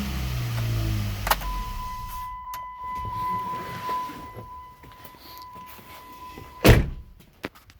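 Chrysler 3.6 Pentastar V6, running with its serpentine belt removed, is switched off with a click about a second in. A steady high warning tone follows for about five seconds, then a single loud slam near the end.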